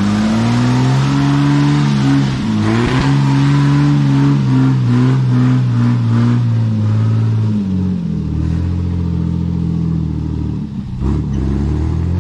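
1990 Ford Maverick 4WD's engine revved hard and held high while the truck claws up a muddy track. For a couple of seconds midway the engine note stutters in choppy breaks as it bounces on the rev limiter. Near eight seconds the revs drop lower, dip briefly, then rise again at the end.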